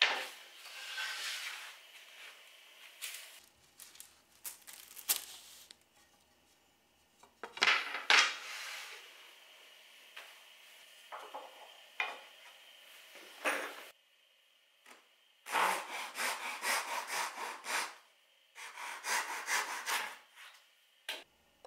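Pine boards and battens knocking and scraping as they are handled on a wooden workbench, then a hand saw cutting a pine batten held in a wooden saw guide: two runs of rapid strokes with a short pause between, near the end.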